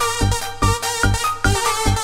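Electronic dance music with a steady kick drum, about two and a half beats a second, under sustained synth notes.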